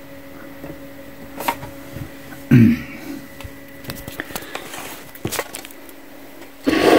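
Scattered light clicks and taps of hands handling fabric and pins at a home sewing machine, setting the work under the presser foot, over a faint steady hum. There is a brief grunt about two and a half seconds in and a louder rustle near the end.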